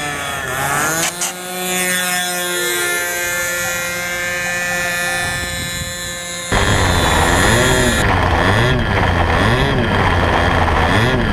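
Two-stroke glow engine of an RC Telemaster model plane running at high throttle through takeoff and climb, a steady buzzing whine whose pitch dips briefly about a second in. About six and a half seconds in the engine is abruptly heard up close, much louder, over a rush of wind, its pitch wavering about once a second.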